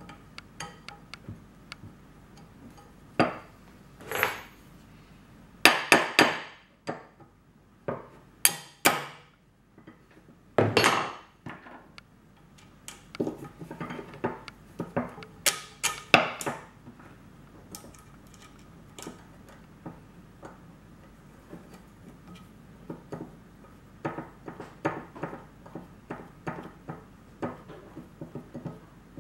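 Steel spokes and small fixings clinking and knocking against a metal wheel rim as the spokes of a model traction engine's rear wheel are fitted loosely by hand. Scattered metal knocks, several louder ones ringing briefly in the first half, then runs of lighter clicks.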